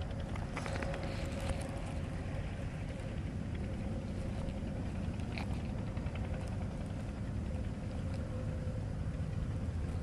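Wind buffeting the microphone, a steady low rumble, with a faint steady tone and a few light rustles.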